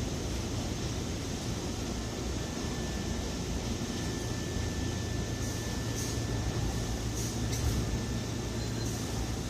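Semboku Rapid Railway 7020 series train standing at the platform, humming steadily with a faint high whine and a few light clicks.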